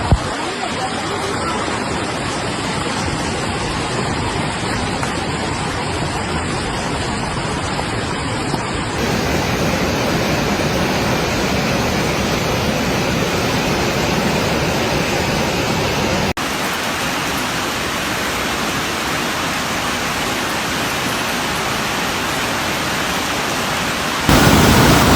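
Fast-moving flash floodwater rushing in a steady, loud roar. Its tone changes abruptly about nine seconds in, again about sixteen seconds in, and once more near the end, where it gets louder.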